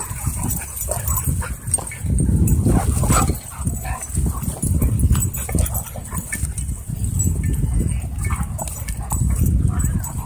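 A German Shorthaired Pointer and a wolfdog play-fighting at close range: repeated low growling and snarling with the odd short yip, over scuffling of paws and bodies on grass.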